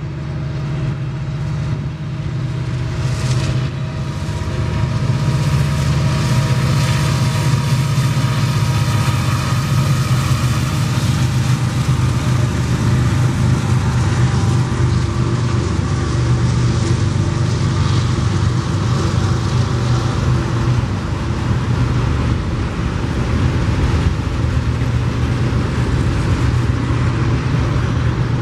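Freight trains passing close: diesel locomotives' engines drone steadily, followed by the continuous rumble of autorack freight cars rolling by on the rails.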